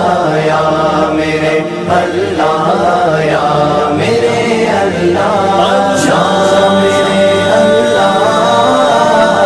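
Islamic devotional song as background music: a voice singing long, wavering, ornamented notes without clear words, the notes held steadier in the second half.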